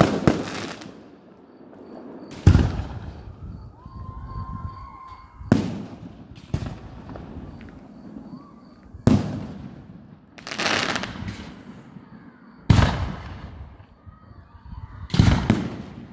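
Aerial firework shells bursting overhead: about eight sharp bangs, one every two to three seconds, each trailing off in a rumbling echo.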